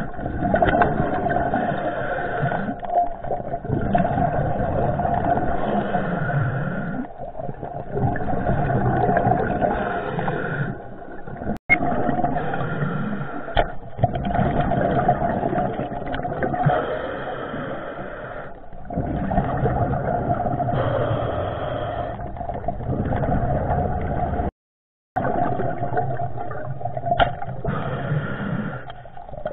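Muffled underwater noise picked up by a camera in its waterproof housing as a diver swims along the seabed: water rushing with a steady hum that dips away every few seconds. There is one sharp click a little before the middle, and the sound cuts out briefly a few seconds before the end.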